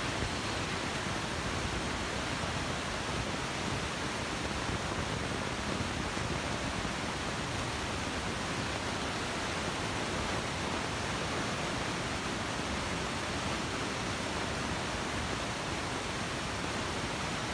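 Steady, even rushing noise in an underground subway station, with no distinct events.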